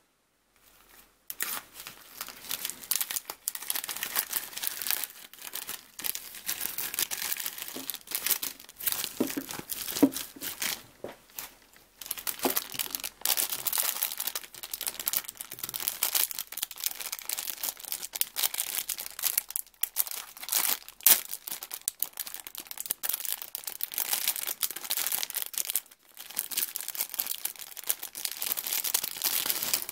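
Plastic packaging crinkling and tearing as it is opened and handled, in a busy run of crackles with a few short pauses.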